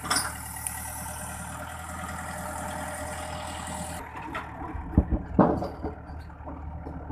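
A heavy vehicle's engine idling steadily. About four seconds in the sound changes abruptly, and two heavy thumps follow about half a second apart.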